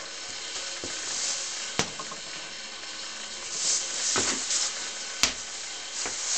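Hiss of a small room, with two sharp clicks, one about two seconds in and one about five seconds in, and soft rustling between them as someone moves about beside buckets of liquid glaze.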